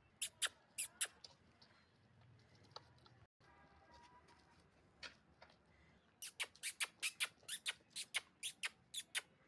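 Calf suckling at a goat's udder, its mouth making sharp wet smacking clicks: a few in the first second, then a quick even run of about four or five a second over the last three seconds.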